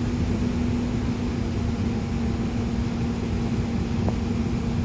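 Steady machine drone: a constant hum over a low rumble, with no change in level.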